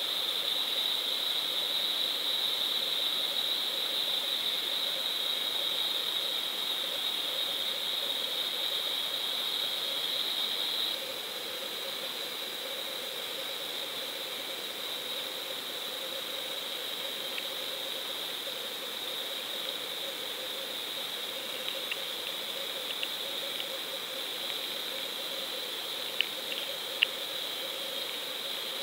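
Steady hiss with a high thin whine from an underwater GoPro recording inside its waterproof housing; the whine drops a little about a third of the way in, and a few faint sharp ticks come near the end.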